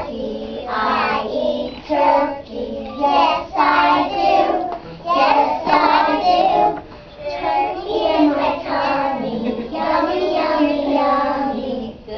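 A group of young children singing a song together, phrase after phrase with short breaks between.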